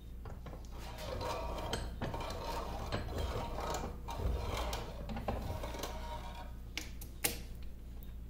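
Cast-iron compound slide of a 1950 LeBlond Regal lathe being worked by hand in a vise: its handle is turned, and metal parts grind and click, with a sharp click about seven seconds in.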